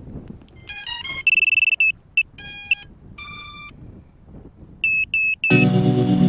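Electronic beeps and tones: a quick run of notes stepping up in pitch, a longer high tone, and more short beep groups, then three short high beeps. Music starts near the end.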